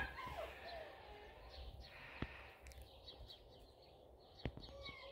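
Faint birds chirping in short calls, with two sharp clicks, one about two seconds in and one near the end.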